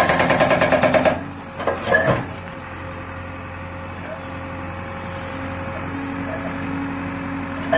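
SSI S43 hydraulic breaker on a JCB 3DX backhoe hammering its chisel into a concrete post at about nine blows a second, stopping about a second in, followed by a couple of knocks. The backhoe's diesel engine then runs steadily.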